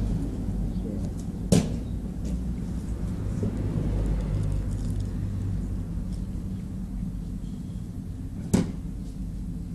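Steady low outdoor rumble with two sharp clicks, one about a second and a half in and one near the end.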